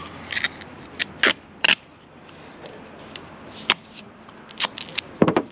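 Grey duct tape being pulled off its roll in a series of short, sharp crackling rips, about eight spread unevenly through the few seconds.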